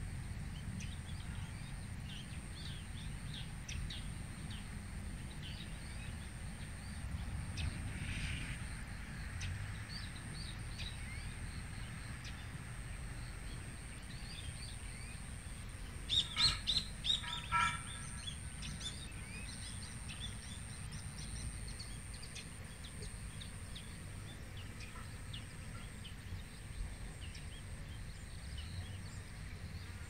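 Outdoor ambience of birds chirping, with many small scattered chirps and a short burst of about five louder, sharper calls a little past the middle, over a low rumble.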